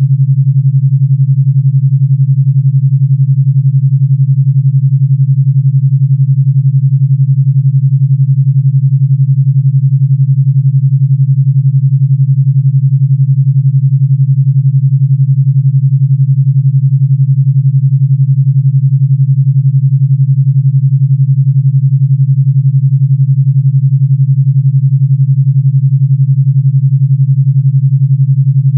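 A steady, low, pure electronic tone at 141 Hz, pulsing rapidly and evenly with an 11 Hz alpha-wave beat.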